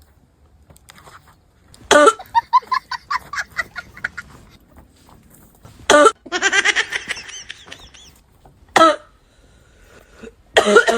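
A man's hacking smoker's cough, played for laughs: four loud coughs. The first two each trail off into a long, pitched, stuttering wheeze.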